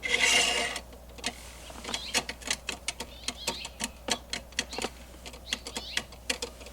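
Small tools clicking against the metal as the three tiny set screws on an e-brake handle are tightened with a hex key, in quick irregular ticks. A short rushing noise comes first.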